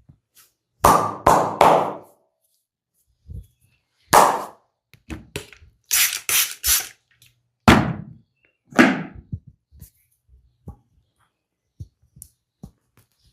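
Percussive massage strokes striking the body: a run of loud slaps and thuds, several in quick threes, with fainter taps near the end.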